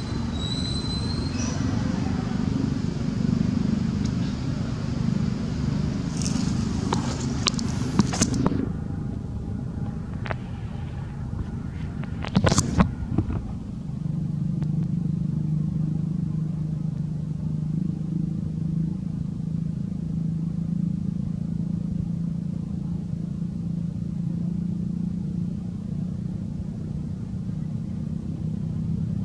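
A motor vehicle engine running with a low, steady rumble. A few sharp clicks come about seven to eight seconds in and again around twelve to thirteen seconds.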